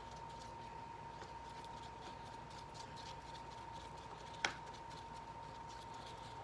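Faint soft ticks and tapping from small objects being handled, over a steady thin electrical hum, with one sharp click about four and a half seconds in.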